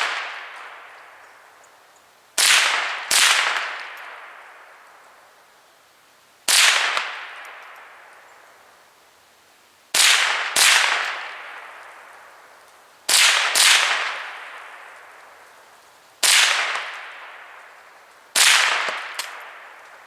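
.22 LR Ruger 10/22 semi-automatic rifle fired nine times at an irregular pace, several shots coming in quick pairs, each crack trailing off in a long echo.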